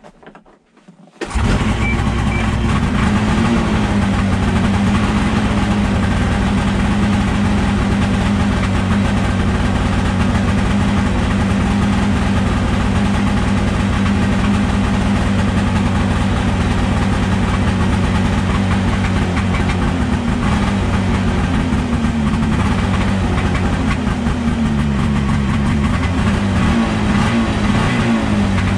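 Ski-Doo snowmobile's two-stroke engine cold-starting on the recoil pull cord: it catches suddenly about a second in and then runs steadily at a smoky, cold idle.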